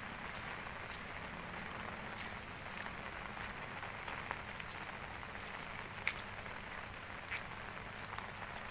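Steady rain falling, an even hiss with occasional separate drops ticking.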